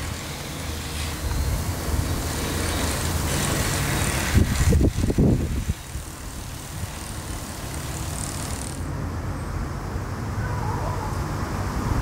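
Outdoor background noise of road traffic: a steady low rumble with a louder pass about four to six seconds in.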